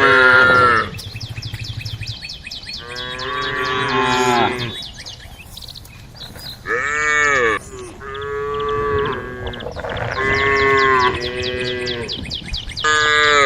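Cattle mooing, calling to the herd: about six long calls in turn with short pauses between them, some bending up and then down in pitch.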